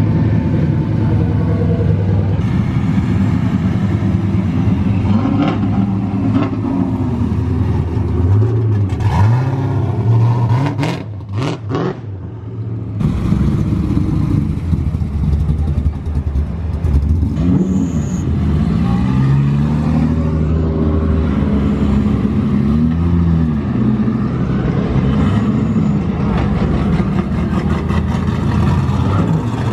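Drift car engines running loud as the cars roll slowly past, revving up and down several times.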